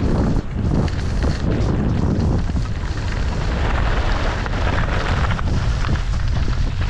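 Wind rushing over a GoPro action camera's microphone during a ski descent, with a heavy low rumble. Skis scrape and chatter over hard, tracked-up snow.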